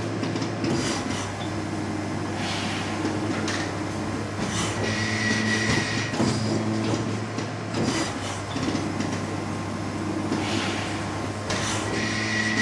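Automated machine with pneumatic actuators running: a steady low hum with a short hiss of air every two seconds or so.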